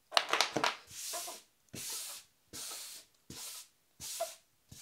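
LEGO 9-volt cables being handled by hand: a run of short rustling scrapes of plastic-sheathed cable, about one every three-quarters of a second.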